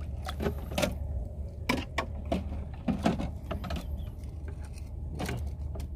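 Scattered soft knocks and clicks from fish and gear being handled in shallow water, over a steady low hum.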